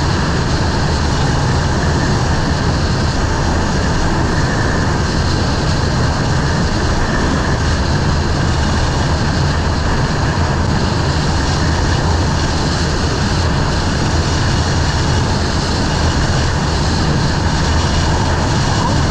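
Steady, loud rush of wind and road noise on a GoPro microphone while riding a motorcycle, with the bike running underneath.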